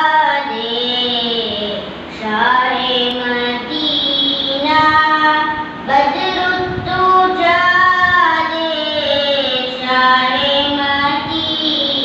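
A young boy singing a naat sharif unaccompanied into a microphone, in long held phrases whose pitch bends and turns.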